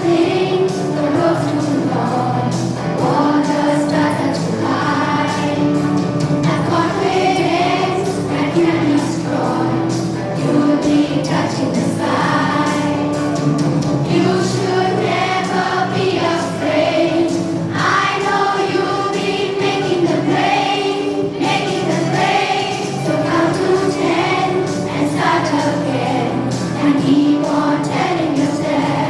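A group of schoolchildren singing a song together over instrumental accompaniment.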